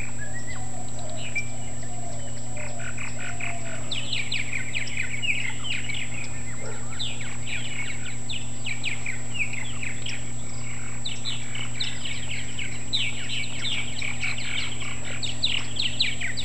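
A group of purple martins chattering: a dense run of quick, down-slurred chirps that grows busier about four seconds in, over a steady low hum.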